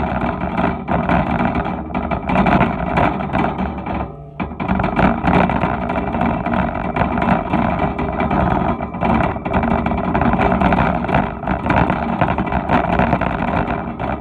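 Wire shopping cart rattling and clattering as it is pushed along a store floor, heard loud and close from a phone riding in the cart, with a brief lull about four seconds in.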